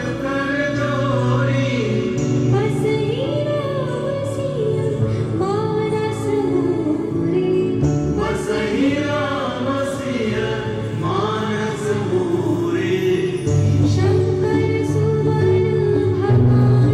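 A group of voices singing a melodic song over instrumental accompaniment, with steady sustained tones beneath the sung line.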